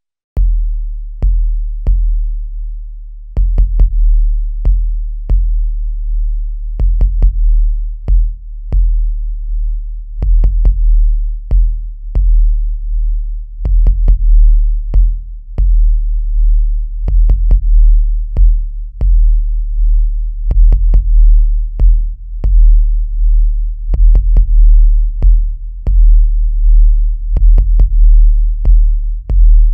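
Industrial techno track built on a deep drum-machine kick and sub-bass pattern with sharp clicky attacks. The hits come about twice a second in a syncopated rhythm, with little sound above the bass. It starts suddenly about half a second in.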